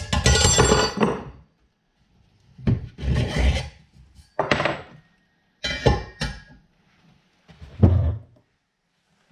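Drill press parts being handled and fitted during assembly: about five separate bursts of rubbing, scraping and clunking, with short pauses between them.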